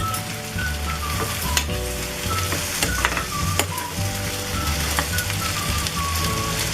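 Okra sizzling in hot oil with onions in a kadhai while being stirred, the spatula knocking and scraping against the pan every half second or so.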